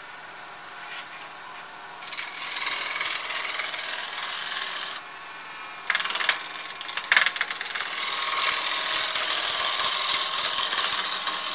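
A freshly sharpened gouge making roughing cuts on a walnut blank spinning on a wood lathe: a cut of about three seconds starting about two seconds in, a short one near six seconds, then steady cutting from about eight seconds on. Between cuts only the lathe's steady running hum is heard.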